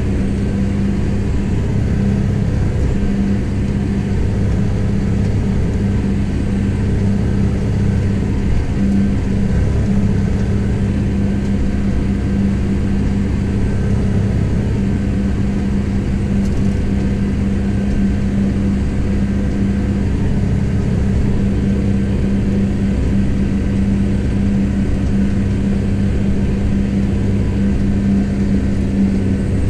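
Kubota M7172 tractor's four-cylinder diesel engine running steadily under load while pulling a mounted plough, heard from inside the cab as a constant low hum.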